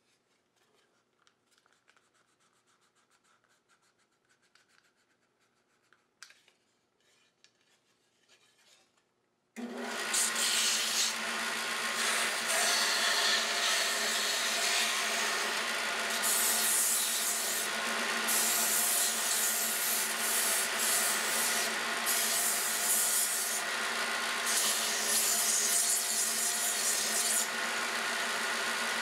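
Near silence for about nine seconds, then a Grizzly benchtop belt-and-disc sander starts abruptly and runs steadily with a wooden whirligig wing held against it. The gritty hiss of wood being sanded swells and drops again and again as the piece is pressed on and eased off.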